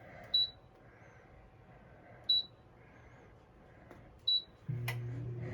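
Electronic beeper of a 10-quart Paula Deen air fryer sounding three short, high beeps about two seconds apart. Near the end a sharp click is heard, and a steady low hum starts.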